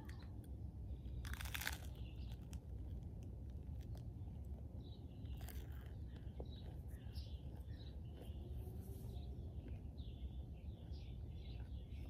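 Small birds chirping again and again, with a loud crunchy bite of toast about a second and a half in and a couple of fainter crunches of chewing later.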